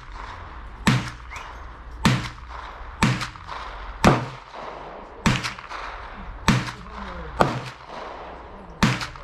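Gunshots fired one after another at a steady pace, about eight sharp reports roughly a second apart, each with a short echo.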